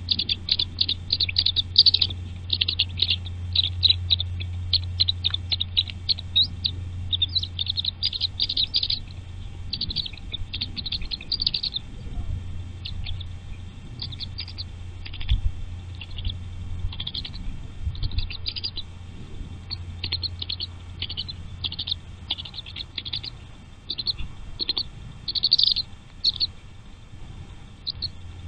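Nestling birds cheeping in rapid high-pitched runs, coming in clusters of a second or two with short gaps, over a steady low hum.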